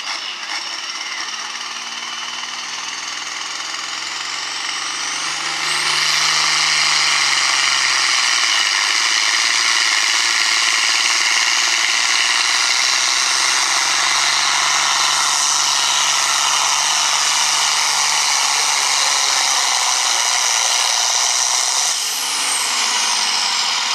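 Turbocharged diesel farm tractor pulling a weight-transfer sled at full throttle. About five seconds in, the engine climbs to full power as the turbo whistle rises, then it runs hard and steady. Near the end the throttle comes off and the engine and turbo whine fall away.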